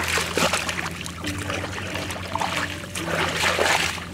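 Water sloshing and splashing in about three bursts, each up to a second long, over a steady low hum.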